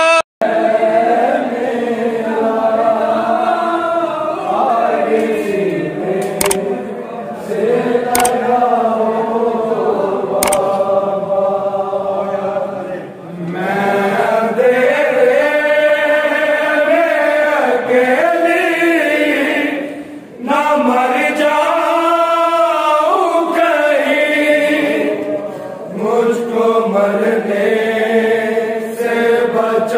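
Voices chanting a noha, a Shia lament, in chorus, with sung lines broken by short pauses. There are three sharp clicks in the first half.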